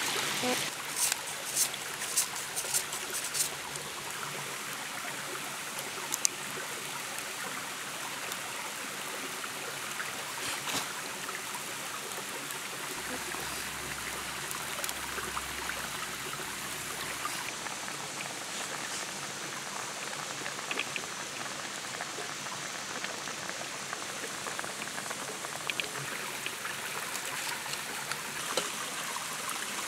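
Steady rush of a shallow stream running over rocks, with a few sharp clicks, most of them in the first few seconds.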